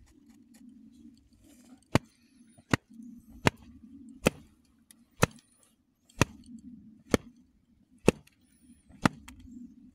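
A series of sharp knocks at a steady pace, about one a second, nine in all, starting about two seconds in.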